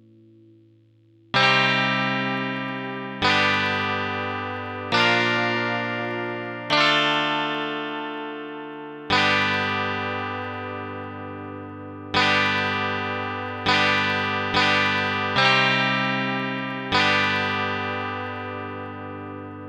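Chords played on the Heavenly Chords phone app in a slow tune, each chord starting sharply and dying away. The first comes about a second and a half in, after the fading tail of the one before, and about ten more follow at uneven gaps of one to three seconds.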